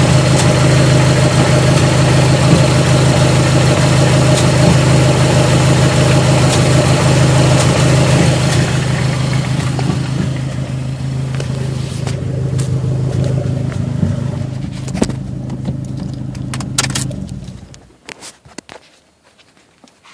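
Dodge SRT-4's turbocharged 2.4-litre four-cylinder engine running with a steady drone that eases off over the second half, then stops about 17 seconds in. A few light clicks follow.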